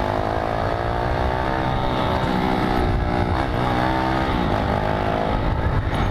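Motorcycle engine running with an aftermarket USA Racing exhaust while under way. Its note rises and drops several times as it is revved and shifted, over a low wind rumble.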